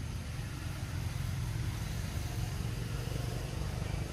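Steady low rumble with a faint hiss over it.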